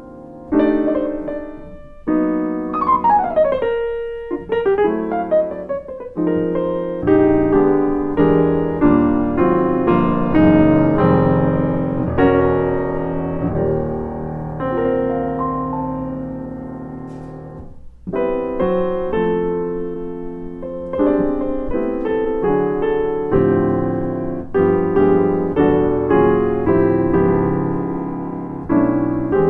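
A Yamaha CFX concert grand piano being played: full chords struck and left to ring and decay. There is a fast descending run about three seconds in, and a brief pause a little past halfway before new chords come in.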